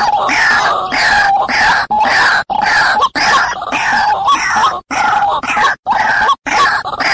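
White-breasted waterhen (ruak-ruak) calls played as a bird-trapping lure: loud, harsh croaking calls repeated about two a second, broken here and there by short, sudden gaps.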